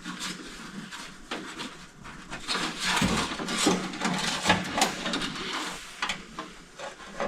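Tape being pulled off a roll and wrapped around a bundle of wires: irregular crackling and short rasping tears.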